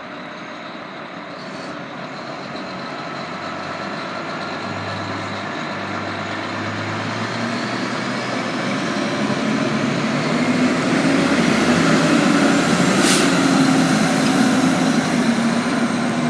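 Fire engine's diesel engine growing steadily louder as the truck approaches, with a brief sharp noise about thirteen seconds in.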